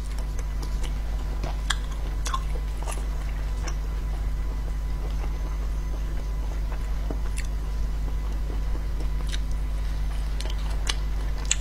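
Close-miked eating of spicy braised sea snails: scattered sharp clicks and smacks of chewing and of the shells and meat being picked apart by hand. A steady low hum runs underneath.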